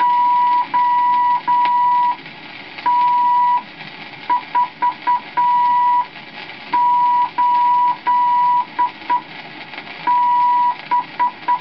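Morse code from a gramophone instruction record: a steady beeping tone keyed in dots and dashes, sending a group of figures at an even pace, with a short pause between each figure. It plays over the record's faint surface hiss.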